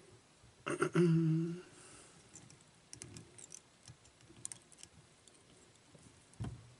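A short hummed 'mm' from a person's voice about a second in, then faint scattered clicks and rustles of hands working thread and bucktail at a fly-tying vise.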